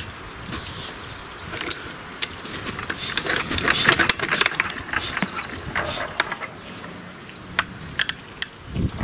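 Old petrol stationary engine being wound over by hand with its starting handle: irregular mechanical clicking and clattering, with the engine not firing.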